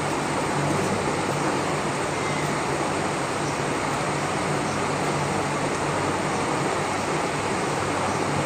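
Steady rushing background noise with a low hum underneath, unchanging throughout and with no distinct knocks or clicks.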